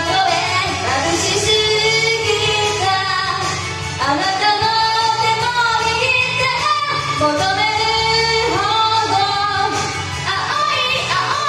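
Karaoke singing: a high voice sings a melody over an instrumental backing track with a steady bass.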